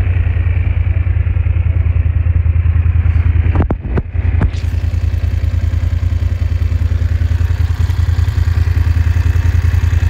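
BMW F850 GSA's parallel-twin engine idling steadily in neutral, just after being started. A few sharp clicks a little under four seconds in.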